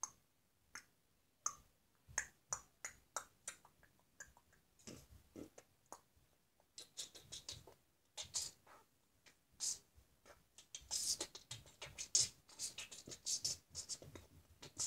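Lego bricks being handled: scattered faint clicks and plastic rattling, thickest in the last few seconds.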